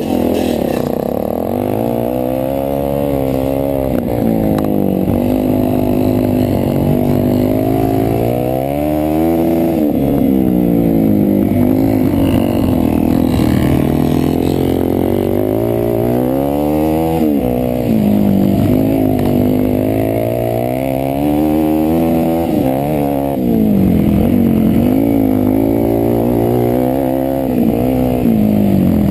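Suzuki DR-Z400E's single-cylinder four-stroke engine pulling hard under throttle, its pitch climbing and then dropping back again and again as the rider works up through the gears and rolls on and off the throttle.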